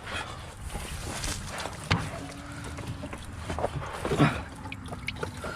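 Scattered clicks and knocks of metal and plastic parts and hand tools being handled during work on a van's front end, with two sharper knocks about two and four seconds in.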